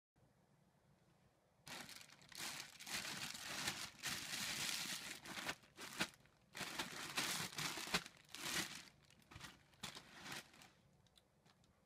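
Plastic bags crinkling as hands fold and handle them, a clear bag of cereal and a shredded-cheese pouch. It starts about two seconds in as a run of bursts and fades out near the end, with a few sharp clicks.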